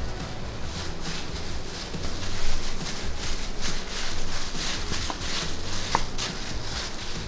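Rolling pin worked back and forth over a sheet of pastry dough on a floured stainless-steel worktable, making a run of short irregular scraping strokes over a steady low hum.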